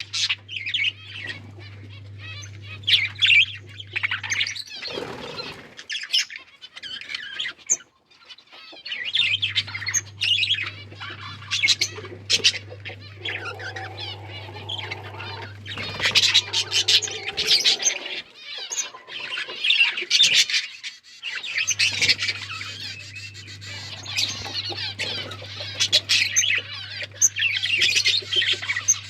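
A flock of budgies chirping and chattering continuously, with sharp calls throughout. A low steady hum comes and goes underneath.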